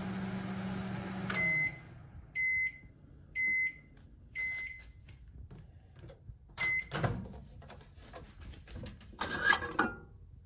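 RCA countertop microwave oven running with a steady hum that stops about a second and a half in, followed by four short high beeps about a second apart signalling the end of the cycle. Later there is another single beep and a low thump, then a few seconds of clattering knocks near the end.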